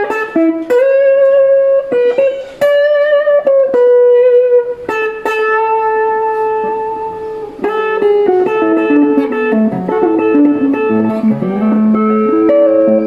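Telecaster-style electric guitar played through a Boss ME-80 multi-effects unit on an ambient distortion patch: a slow melody of long, held notes that ring into one another.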